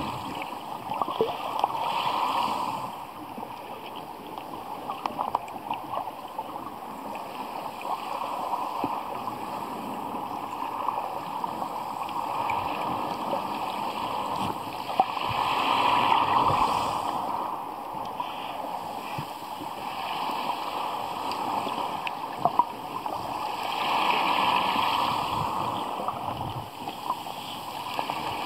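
Shallow sea heard underwater over a pebble bottom: a steady wash of moving water with many small clicks. It swells louder three times as waves pass over.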